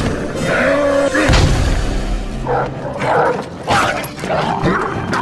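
Action-film fight soundtrack: music under barking from mutated dogs, with several sharp hits and crashes.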